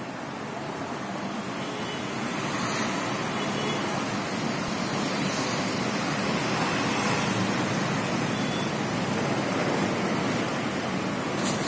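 Steady rushing background noise with no distinct events, growing slightly louder over the first couple of seconds.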